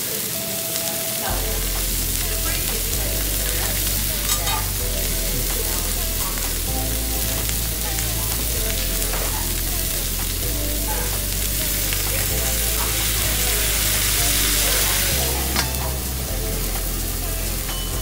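Steaks and vegetables sizzling on a hot teppanyaki griddle. The sizzle swells for a few seconds after the middle as liquid squirted onto the hot steel hisses into steam, and a couple of sharp metal clinks stand out. Background music with a bass line comes in about a second in.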